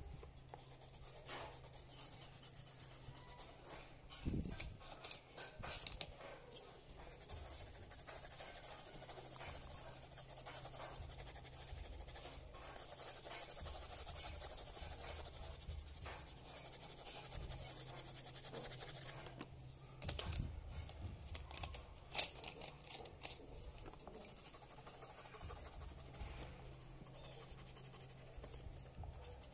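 Coloured pencil shading on paper: a soft, uneven scratching of the pencil lead, steadier through the middle stretch, with a few short knocks, about four seconds in and again around twenty seconds in.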